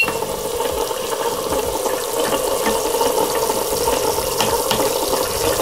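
Toy kitchen set's battery-powered induction hob playing its electronic frying sound effect, a steady sizzling hiss through a small speaker, while the pretend omelette cooks.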